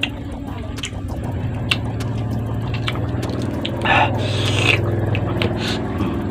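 Close-up mouth sounds of a person chewing unripe mango rujak: wet smacking and sharp clicks, with a louder noisy moment about four seconds in.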